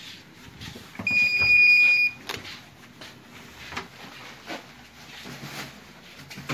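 A single high-pitched electronic beep, one steady tone lasting about a second, starting about a second in. Light knocks and rustling come and go around it.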